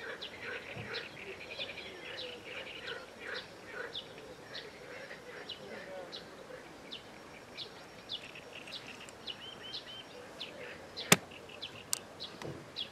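Many small birds chirping and twittering, with a single sharp click about eleven seconds in.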